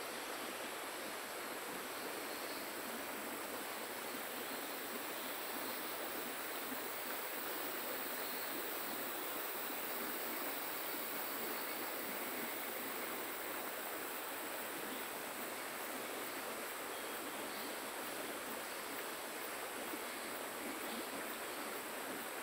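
Steady, even rush of flowing river water, with a thin high steady drone above it.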